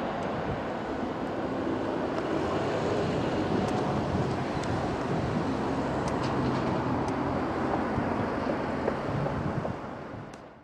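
Jet engine noise of an Airbus A319 with IAE V2500 engines, a steady rush as the airliner rolls out along the runway after touchdown with spoilers up; it fades out near the end.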